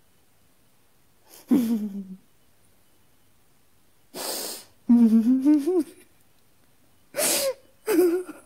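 A person's wordless vocal sounds: a breathy cry about a second and a half in, a hiss and then a drawn-out wavering moan in the middle, and two short cries near the end.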